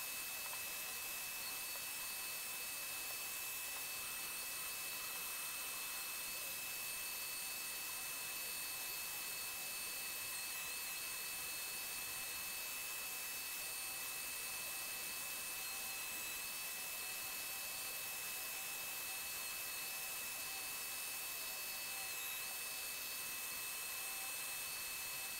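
Dremel 4300 rotary tool spinning a carving burr through its flex shaft and grinding into wood, a steady high whine whose pitch wavers slightly a few times.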